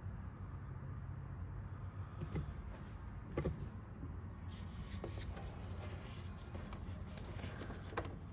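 A hand handling a packaged 1:6 scale model motorcycle in its plastic tray and protective fabric: a few soft clicks and rustles, the loudest about three and a half seconds in, over a steady low hum.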